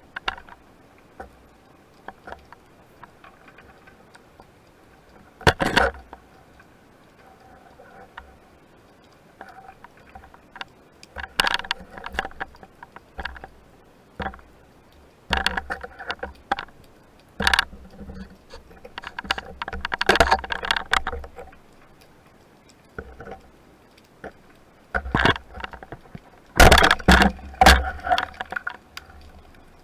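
Irregular underwater knocks, scrapes and clicks, heard through the camera housing, as a spearfisher's gloved hand and speargun bump and rub against rock while probing a crevice. They come in bunches, the loudest cluster near the end, with faint scattered ticks between.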